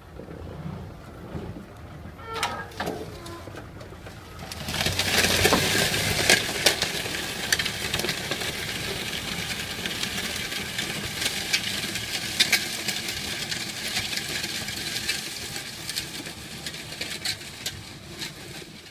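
Tractor engine running as it pulls a disc plough through dry soil; about five seconds in, a loud hiss scattered with many sharp clicks sets in and carries on.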